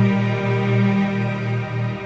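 Background music: a slow, ambient pad of long held low notes.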